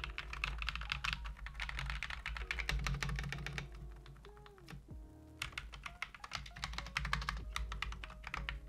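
Typing sound test on an AKKO 3061S 60% mechanical keyboard with AKKO V3 Cream Yellow linear switches, PBT keycaps and foam only between the plate and the PCB: a quick, steady run of key clacks that drops away for about a second midway, then resumes.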